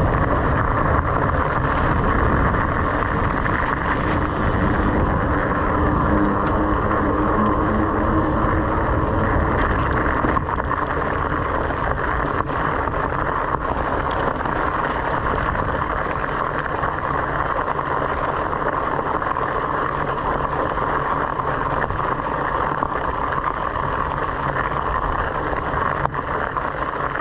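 Steady rush of wind over a handlebar-mounted GoPro's microphone, mixed with bicycle tyres rolling over a gravel trail. It eases slightly about ten seconds in.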